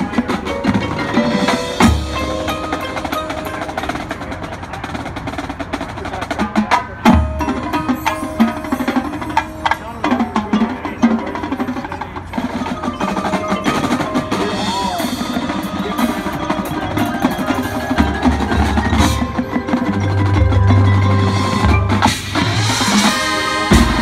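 Marching band playing its field show, with mallet keyboards and drums of the front ensemble prominent. Several sharp full-band accents land with low drum booms, about two, seven and nineteen seconds in, and again at the very end.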